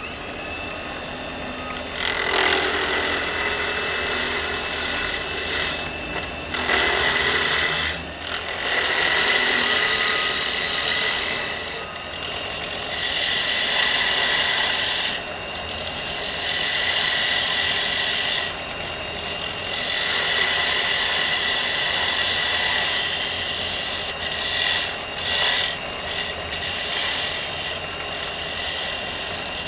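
Wood lathe spinning a holly pen blank while a hand-held turning tool cuts it, a rough hissing scrape of shavings coming off in long passes broken by several short pauses. A steady high whine runs beneath the cutting.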